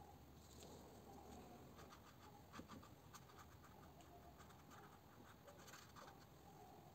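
Near silence with faint, soft scratches and dabs of a paintbrush working wet watercolour paint on paper, in a run of short strokes through the middle.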